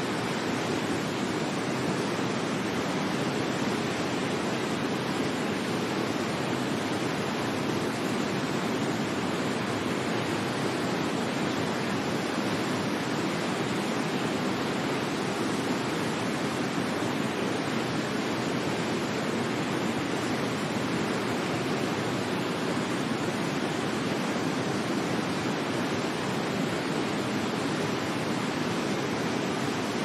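Waterfall: water pouring down in a steady, unbroken rush that never changes.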